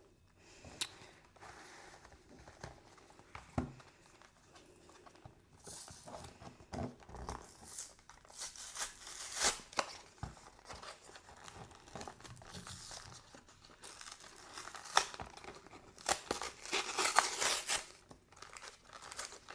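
Pokémon card blister pack being opened by hand: the plastic blister crinkles and the cardboard backing tears in irregular bursts, with a few sharp clicks, the loudest crinkling and tearing near the end.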